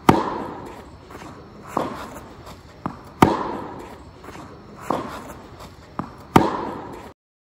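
Tennis racket strikes: three loud forehand hits on the ball about three seconds apart, with softer ball knocks between them. The strikes echo under a high metal-framed roof, and the sound cuts off about seven seconds in.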